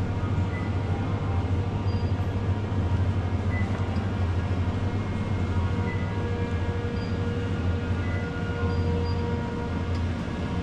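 Steady low hum of supermarket refrigerated display cases, with faint steady tones above it.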